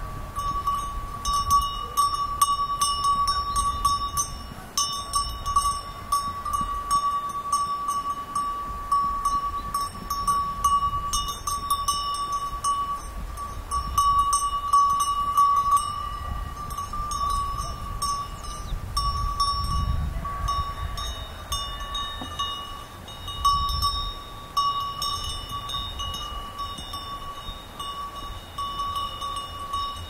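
Many sheep bells clanking irregularly as a flock moves and feeds, over a steady high tone.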